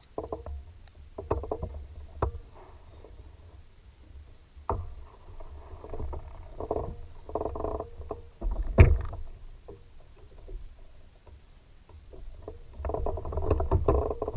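Kayak being paddled along: uneven paddle strokes and water sloshing against the boat, with a few sharp knocks, the loudest about nine seconds in.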